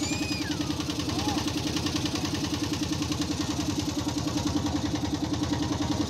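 Motorboat engine running steadily with a fast, even pulse.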